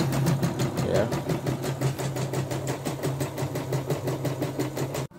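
CNY E960 embroidery machine stitching at speed: a steady motor hum with a fast, even run of needle strokes, about ten a second, that cuts off abruptly near the end. The machine is running a test design after being repaired for jamming.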